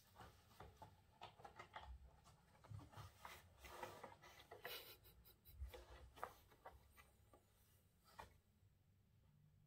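Cat's claws and body scraping and rubbing on a corrugated cardboard scratcher: a string of short scratches and rustles that die away about eight seconds in.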